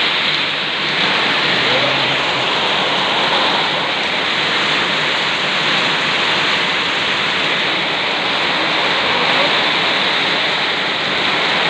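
Heavy downpour: a loud, steady hiss of rain pouring onto the paved street and roofs.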